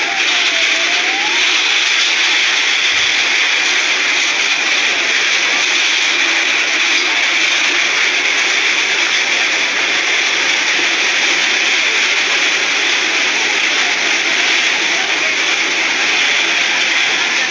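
Steady loud rushing noise of a building fire being fought, the sounds of the scene blended into one even roar. A siren wails faintly, dipping and rising near the start and again near the end.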